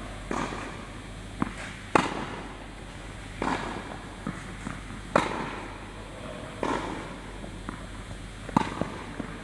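Tennis forehand practice: three sharp racket-on-ball hits about three seconds apart, each just after a lighter ball bounce, with shoes scuffing the court between shots.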